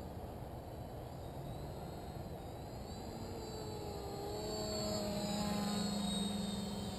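Quadcopter on 4S power with Cobra 2217 950kv motors and 10x4.5 props, its propeller hum wavering slightly in pitch. Faint at first, it grows louder as the quad flies in close, about halfway through, then eases off near the end.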